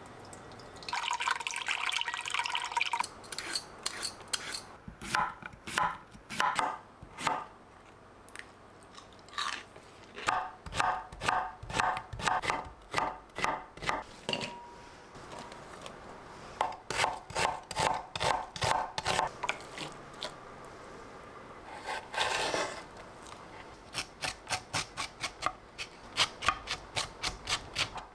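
Knife chopping food on a cutting board in quick runs of about three to four strokes a second, pausing between runs.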